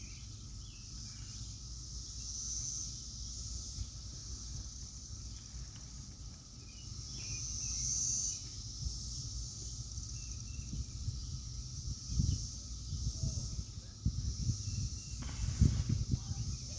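Chorus of cicadas buzzing high and steady, swelling twice, loudest about eight seconds in. A low rumble with a few bumps lies underneath in the second half.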